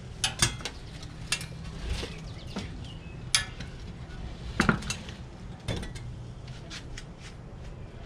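Irregular clinks and knocks of a Yardworks reel lawnmower's metal frame and wheels bumping on a glass tabletop as the mower is shifted and turned around, the loudest knock about halfway through.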